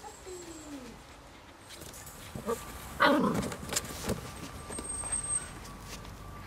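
Seven-week-old puppies yelping and whining: a short falling whine at the start, a few small yips, and a louder, sharper yelp about three seconds in.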